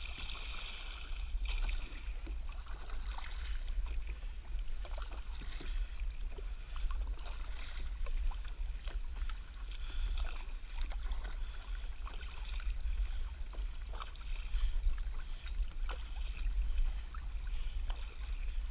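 Sit-on-top kayak being paddled: water splashing and dripping off the paddle blades in irregular small splashes and ticks, over a steady low rumble.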